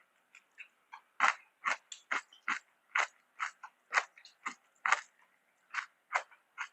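Close-miked chewing: wet, crunchy mouth clicks in a steady rhythm of about two a second, quiet at first and louder from about a second in.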